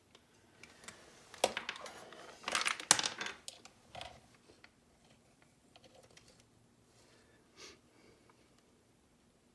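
Small plastic and metal parts of a car door lock actuator clicking and rattling as they are handled, with a dense run of sharp clicks in the first few seconds and a few faint ticks after.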